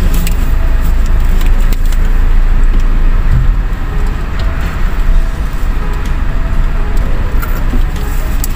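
Loud, steady low rumble of a ferry's car deck under way, with no distinct events standing out.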